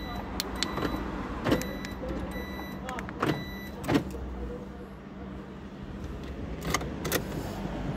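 Sharp clicks and clunks as the Ford Fiesta's keys and ignition are handled, about five in all, with short repeated high electronic beeps in the first three seconds over a steady low hum inside the car.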